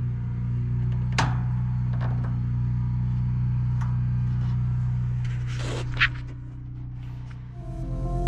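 Small electric space heater running with a steady low hum, its control knob clicking as it is turned. About six seconds in there is a louder click and the hum drops.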